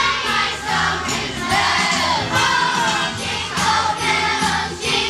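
Children's school chorus singing a Christmas carol together, with accompaniment that keeps a steady beat.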